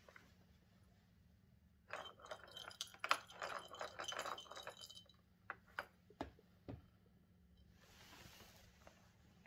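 A plastic ball rattling and clattering in a Catit play-circuit track as a cat paws at it: a dense run of clicks for about three seconds, then a few single taps, and a soft rustle near the end.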